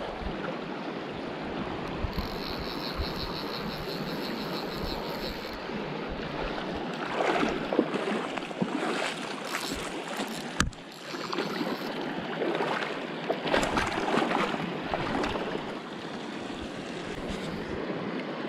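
Shallow mountain river running steadily, with splashing as a wild brown trout is netted and handled: louder splashes about seven seconds in and again around thirteen to fifteen seconds, and a single sharp click between them. A brief high rapid ticking comes about two seconds in.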